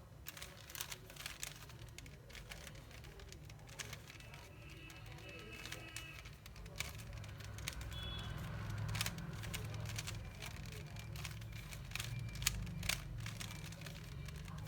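Plastic 3x3 Rubik's cube being scrambled by hand: irregular clicks as its layers are twisted. A low steady hum runs under it, with faint music.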